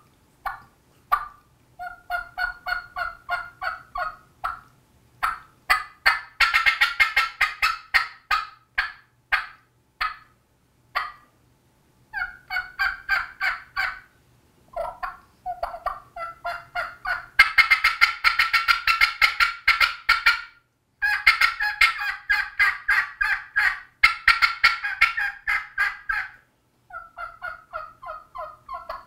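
Match Maker three-reed latex diaphragm turkey call with a bat-wing cut, blown by mouth, imitating a hen turkey: strings of two-pitch yelps with a few single notes, broken up by louder, faster runs of rapid notes. The last series is softer.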